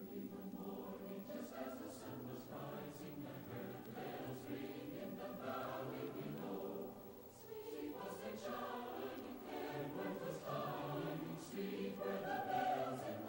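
A choir singing, many voices together in held chords.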